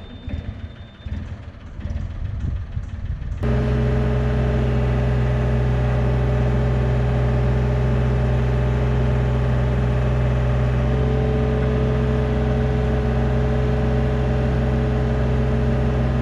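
Compact excavator's diesel engine running, with a sudden step about three seconds in to a loud, steady high-throttle run as the hydraulics work under load, pushing the machine up off the ground.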